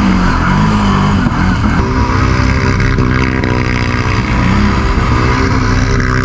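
ATV engine running under throttle on a muddy trail, its pitch rising and falling as it revs. The sound changes abruptly about two seconds in, at an edit.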